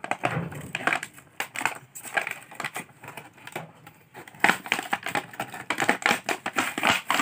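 Stiff clear plastic blister packaging crackling and crinkling as it is pried and pulled off its cardboard backing card, with a denser, louder run of crackles from a little past halfway.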